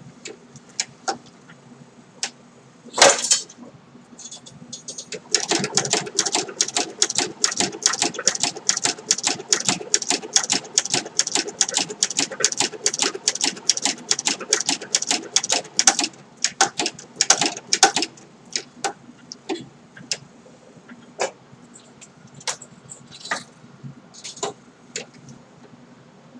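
Singer 7-34 sewing machine stitching leather: a steady run of needle strokes at about five a second for roughly twelve seconds. Before and after the run come scattered single clicks and knocks, one short rustling burst among them.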